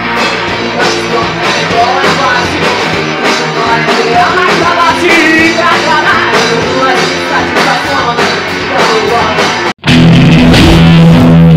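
Live rock-and-roll band playing with singing, until a sudden cut about ten seconds in to a loud distorted electric guitar riff.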